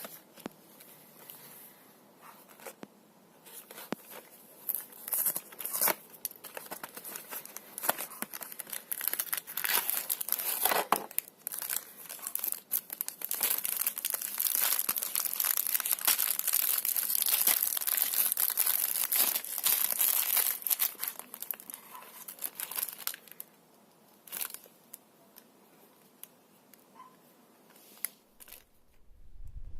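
Crinkling and tearing of a plastic biscuit wrapper being handled and opened: scattered crackles at first, then a long stretch of continuous crinkling in the middle, dying away towards the end.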